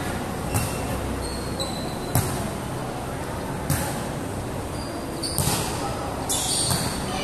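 Volleyball rally: a series of sharp slaps of hands and arms hitting the ball, about five strikes roughly a second and a half apart, echoing under a covered court. Players and spectators chatter in the background.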